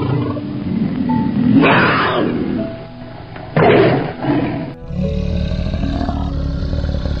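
A tiger roaring twice, about two seconds apart, over background music. About five seconds in, a steady low rumble takes over.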